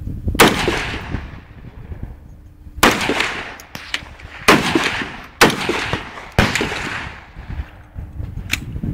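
AR-15 rifle fired in slow, unevenly spaced single shots: five loud cracks, each trailing off in a ringing echo lasting about a second, with a few fainter sharp cracks between them.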